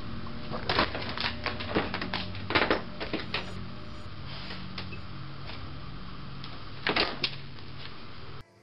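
A cat playing among loose sheets of paper on a carpet, giving sharp clicks and paper rustles in two clusters: about a second in for two or three seconds, and again near seven seconds. Under them runs a steady low hum.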